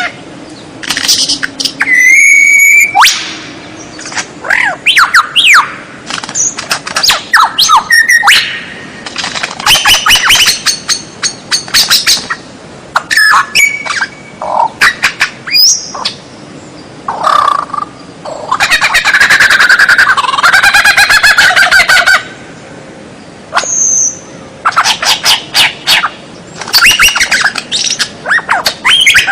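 White-rumped shama (murai batu) singing a loud, varied song in separate phrases: clear whistles and gliding notes, rapid rattling trills and harsh squawking notes, with short pauses between phrases.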